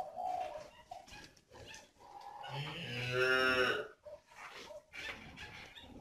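A cow mooing once: one long, low call of about a second and a half near the middle.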